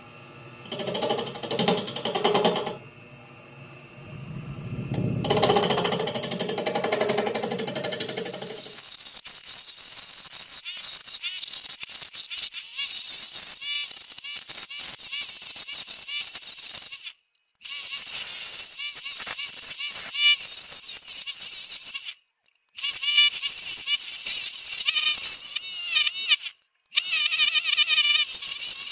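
Mastercraft 12-inch wood lathe spinning a bowl blank while a turning tool cuts into it. The tool gives a rapid rough chatter as it bounces on wood that is not yet round and still wobbling. The sound cuts out abruptly for a moment three times.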